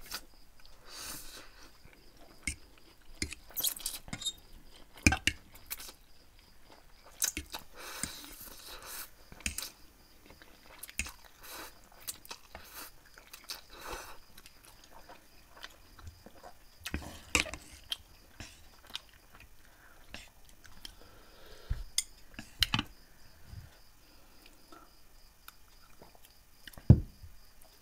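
Two people slurping and chewing spicy instant noodles close to the microphone: irregular wet smacks, slurps and small clicks.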